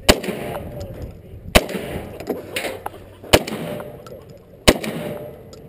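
Four single gunshots, well spaced at roughly one and a half seconds apart, each with a short ringing tail.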